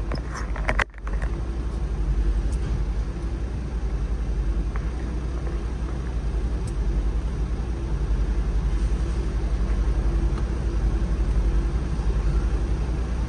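Steady low rumble heard from inside a car cabin aboard a Channel Tunnel vehicle-shuttle carriage, with a faint steady hum above it. The sound drops out briefly just under a second in.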